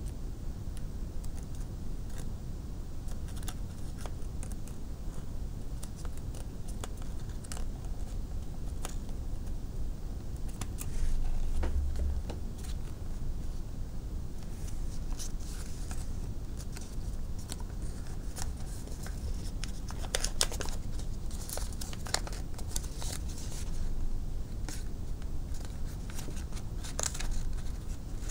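Origami paper crinkling and crackling as it is folded and creased by hand, in scattered small clicks that grow busier in the second half, over a steady low hum. A short low bump comes about twelve seconds in.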